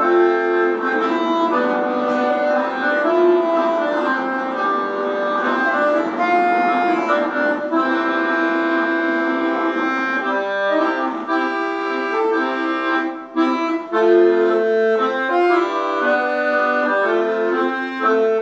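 Accordion music: a tune of held chords and changing melody notes, with a brief pause about thirteen seconds in.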